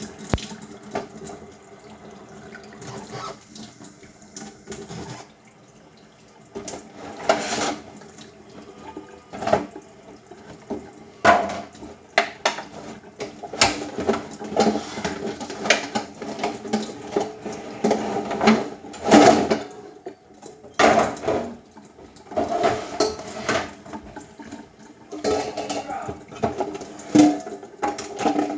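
Kitchen sink tap running while dishes are washed by hand, with repeated knocks and clatters of plastic containers and dishware being handled and rinsed.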